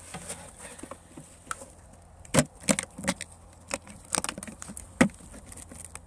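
Handling noises from opening a beehive in winter: a handful of sharp knocks and clicks as the clear cover sheet and a bag of bee candy are lifted off the frames. The loudest knocks come about two and a half and five seconds in.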